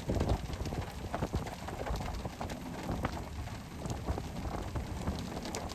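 Rain pattering, with scattered raindrops tapping irregularly over a low, steady rumble.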